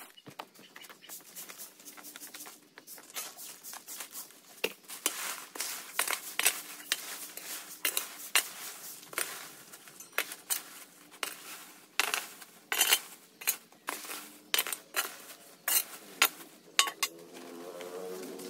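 Irregular clinking and clattering of hard objects being handled, sparse at first and busier from about five seconds in, with a few sharper knocks.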